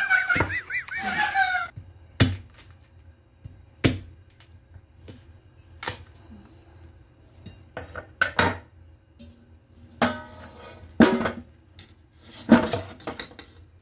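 Stainless cleaver chopping through a cob of corn onto a bamboo cutting board: single sharp chops a second or two apart, about seven in all. Toward the end comes some clatter as corn pieces go into a stainless steel pot. A drawn-out, wavering voice is heard in the first couple of seconds.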